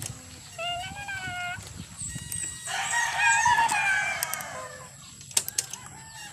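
Animal calls: a short pitched call about half a second in, then a louder call of about two seconds that falls in pitch at its end, with a few sharp clicks near the end.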